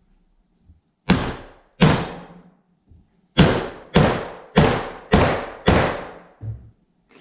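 A 16-ounce claw hammer strikes a steel wheel-bearing punch/press tool, driving a new wheel bearing into a Polaris RZR bearing carrier. It lands seven sharp metallic bang-and-clang blows, each with a brief ring: two, a pause of about a second and a half, then five in quick even succession. A small dull knock follows near the end.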